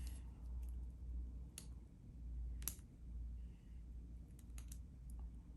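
A few sharp little metal clicks, the loudest about midway, as a tool prods at a pin and spring stuck in a pin chamber of a disassembled pin-tumbler lock.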